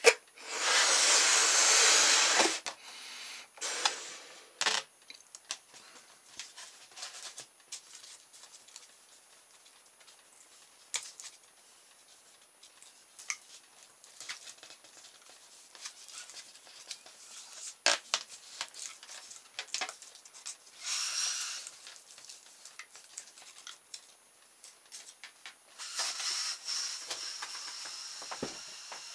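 A rubber balloon and a paper-and-straw rotor being handled, with scattered crackles and light clicks. There is a loud rush of air about a second in, a shorter one later, and a steady hiss of air from the balloon starting near the end.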